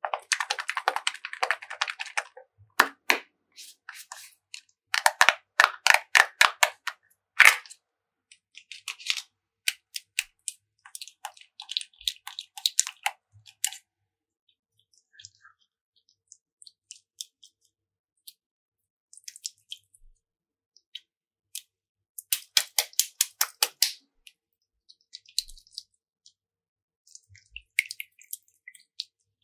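Slime being pressed and stretched by hand, crackling with clusters of rapid sharp clicks and pops, with sparser clicks between the bursts.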